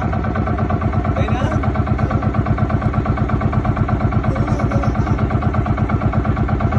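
Engine of a motorized outrigger boat (bangka) running steadily under way, with a fast, even throb. A voice is heard briefly about a second in.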